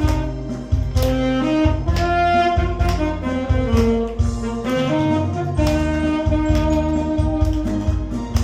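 Saxophone playing a slow melody over a backing track with a steady bass beat.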